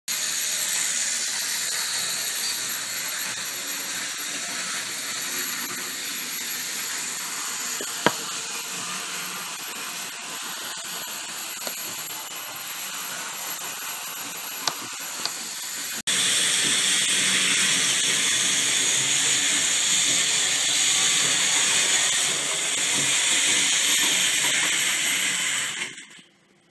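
Steady hissing noise with faint high steady tones, jumping louder about two-thirds of the way in and cut off shortly before the end, with a few light knocks.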